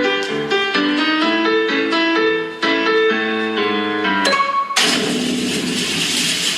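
Piano music, a quick run of notes, that is cut off nearly five seconds in by a sudden, loud, even rushing noise.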